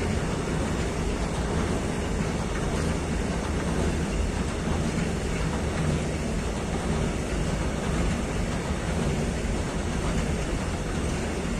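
Freight train of Wascosa covered hopper wagons rolling past close by, its wheels on the rails making a steady, even noise.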